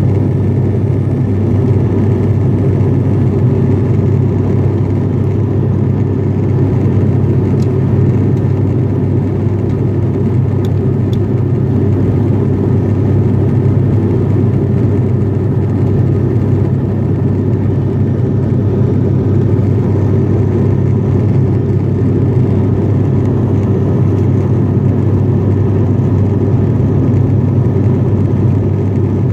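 Steady drone of an ATR 42-500's twin turboprop engines and six-blade propellers in flight, heard inside the passenger cabin, with a strong low hum.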